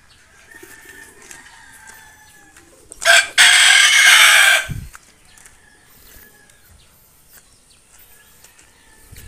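A rooster crowing loudly about three seconds in: a short first note, then a long wavering crow of about a second and a half that cuts off. Fainter, thinner calls come before it.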